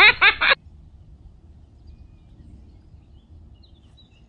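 Low, steady wind noise on the microphone, with a few faint bird chirps about three and a half seconds in.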